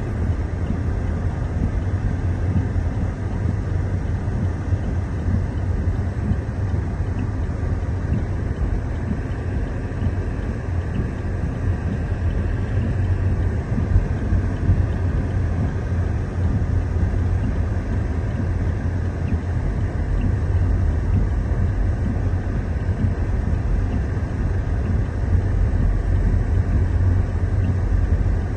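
Steady low rumble of a car driving, heard from inside the cabin: engine and road noise with no distinct knocks or strokes.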